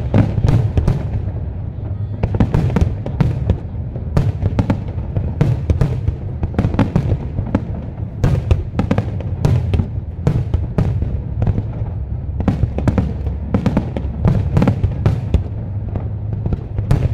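Aerial fireworks display: shells bursting in quick, irregular succession, many sharp bangs two or three a second over a continuous low rumble, with music playing underneath.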